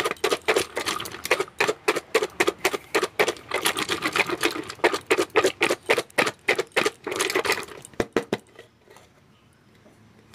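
Spiced chickpeas and chanachur rattling inside a stainless steel bowl covered with a steel plate, shaken hard at about four shakes a second to mix the chaat. The shaking stops about eight seconds in with a couple of sharp clinks of steel.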